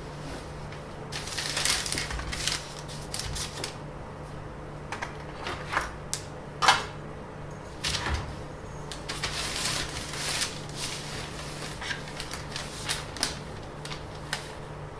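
Irregular rustling, clicks and taps of small objects being handled, about a dozen sharp ones scattered through, with a low steady hum underneath.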